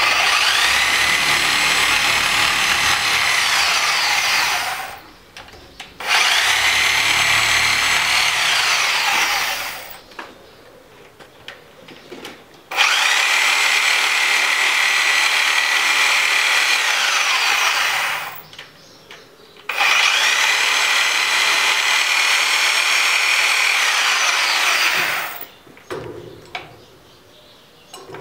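A small electric motor run four times for several seconds each, its whine rising in pitch as it spins up and falling as it winds down after each run.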